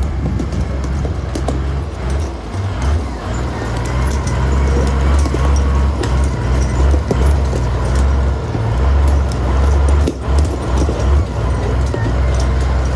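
Komatsu WA100-3 wheel loader's diesel engine running with a steady deep rumble, getting a little louder after about four seconds, with scattered clicks and knocks from the machine over it.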